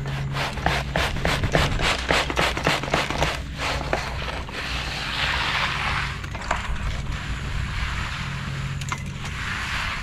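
Rapid repeated scraping of hand tools working wet concrete, several strokes a second for the first few seconds, then a rougher, slower rasp. A steady low hum runs underneath.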